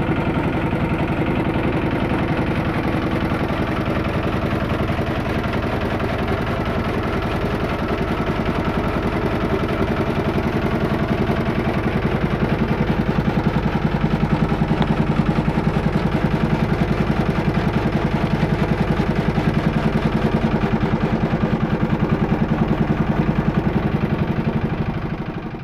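Small 6 hp single-cylinder diesel engine running steadily under load, belt-driving a chaff cutter that chops green fodder; an even, rapid chugging.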